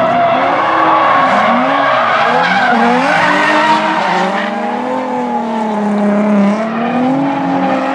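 Two drift cars sliding in tandem: engines revving, their pitch rising and falling as the throttle is worked, over the continuous skid and squeal of tyres spinning into smoke.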